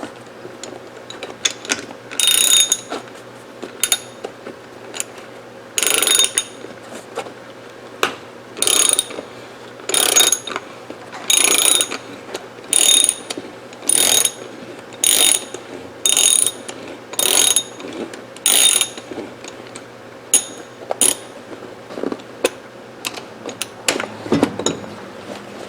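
Socket ratchet clicking in about a dozen short back-strokes, roughly one a second, then a few sparser clicks near the end, as it turns out the long buttstock screw of a rifle.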